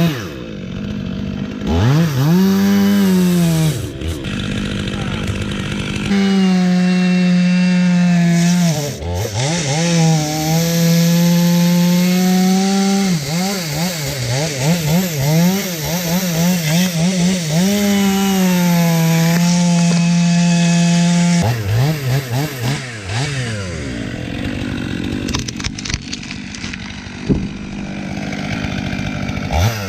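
Chainsaw cutting through a maple trunk, the engine revved to full throttle in several long pulls of a few seconds each and dropping in pitch between them; the second half runs lower and more unevenly.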